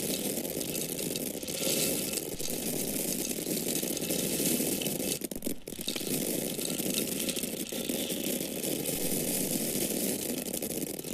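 Dry corn kernels falling in a steady stream, a dense rattle of many small hard grains striking one another and a surface, with a brief break about five and a half seconds in.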